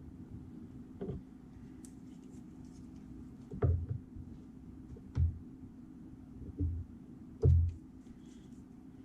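Scattered low knocks and thumps as fly-tying tools and the vise are handled on a desk, about five over the stretch at uneven intervals, over a steady low hum.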